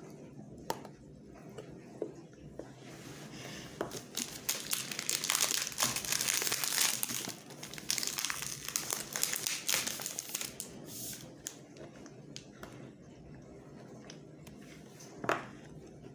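Wrapper of a MrBeast chocolate bar crinkling and crackling as it is handled and pulled open, busiest through the middle. A single sharp click comes near the end.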